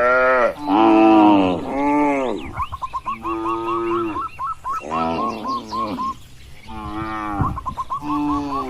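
Cattle mooing, about seven long calls one after another, some overlapping and rising then falling in pitch. In the gaps comes a quick run of short, high, hooked calls, about five a second.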